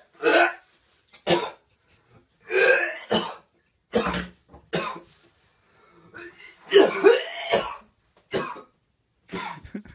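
A man gagging and dry-heaving: about ten loud throaty retches in irregular bursts, some in pairs. He is pulling a clump of hair out of a shower drain.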